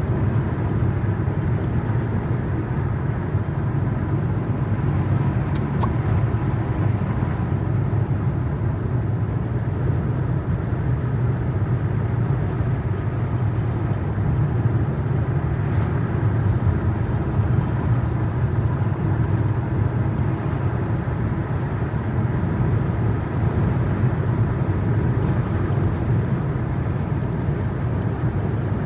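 Car driving at a steady speed: continuous low rumble of road and engine noise that holds level throughout.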